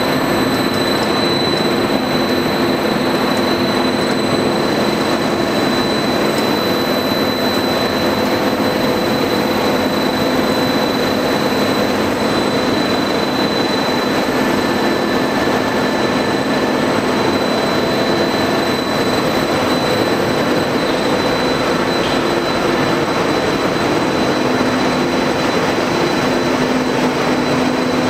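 PVC coil mat extrusion line running: a steady mechanical drone from the extruder drive and machinery, with a constant high whine over it.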